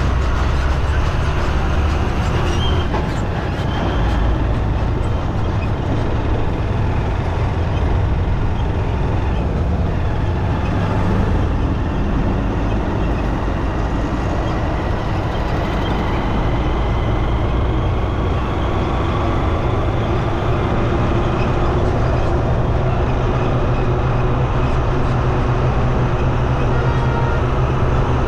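Steady low rumble of engines and road traffic heard from a moving bike in city streets, with wind noise on the microphone.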